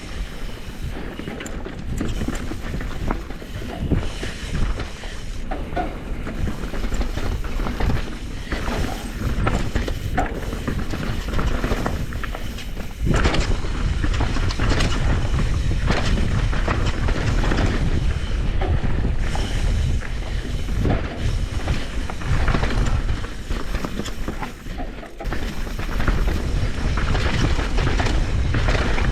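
Mountain bike riding down a fast, rooty trail: tyres rolling over dirt and roots with a steady rumble and many sharp knocks and clatters from the bike.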